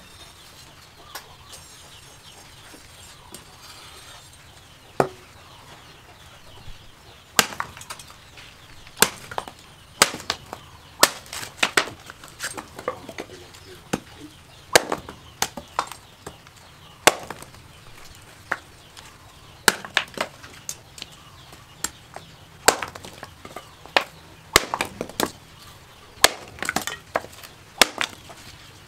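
Home-forged knife made from a chainsaw, chopping into a dry wooden stick on a wooden block: sharp chops about every second from about five seconds in, with wood splitting. It is a test of the new blade's edge.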